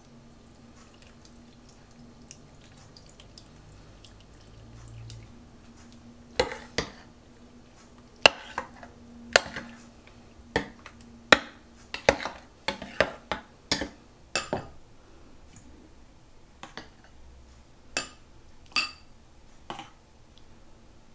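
Kitchen handling sounds: a string of separate, irregular clinks and taps of dishes and utensils, thickest in the middle. Under them runs a faint low hum that stops about two-thirds of the way through.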